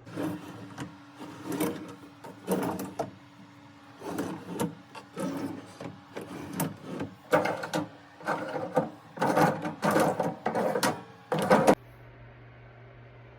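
Parts of an IKEA Aurdal closet system being handled and fitted together: irregular knocks, clatters and scrapes that stop about twelve seconds in.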